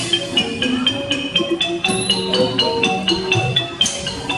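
A Thai piphat ensemble plays dance music for a likay offering dance. A ranat (Thai xylophone) leads with quick, even mallet strokes, about four or five a second, over sustained and ringing pitched notes.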